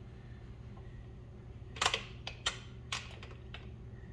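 A few sharp, separate metal clicks and clinks from a hand wrench turning a bolt on the aluminium rack arms, the loudest cluster about two seconds in.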